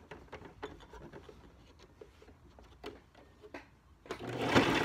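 Cotton fabric being folded and handled at a sewing machine, light rustling with small scattered clicks, then a louder, brief burst of rustling noise near the end.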